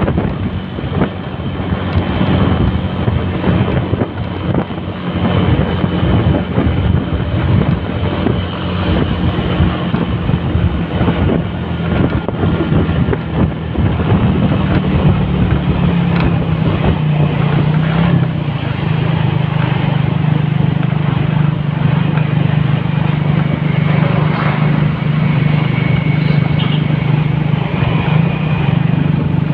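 Motorcycle engine running steadily while riding, heard from the rider's seat, with wind buffeting the microphone. The wind gusts ease in the second half while the engine note holds steady.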